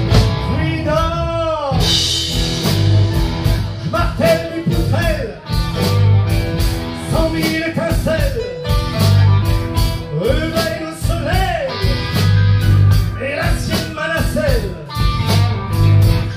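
Live blues-rock band playing an instrumental break. An electric guitar lead with bent notes that swoop up and down rides over a steady bass and drum beat.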